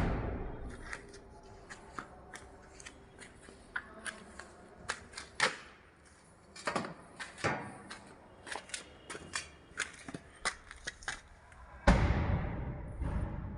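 A series of irregular clicks and light knocks, with a louder thump at the start and another near the end, each trailing off in a short rush of noise.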